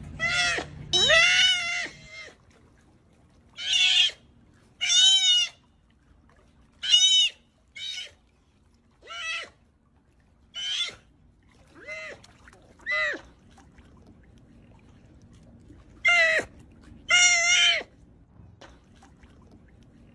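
Sea otter crying: a series of about a dozen high-pitched squealing calls, each under a second long and rising then falling in pitch, with gaps of one to three seconds between them and some calls coming in quick pairs. The longest and loudest calls come about a second in and again near the end.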